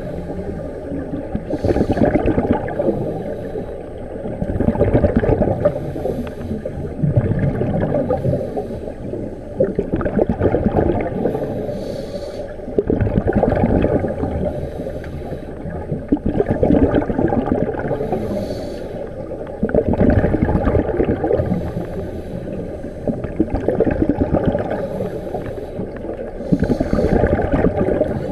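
Scuba regulator breathing heard underwater: exhaled bubbles gurgling and rumbling in swells that rise and fall every few seconds, with a brief hiss at some of the breaths.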